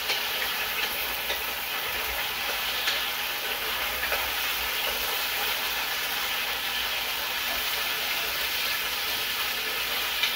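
Sliced potatoes frying in hot oil, a steady sizzle, with a few light taps of the wooden spoon stirring them in the pot.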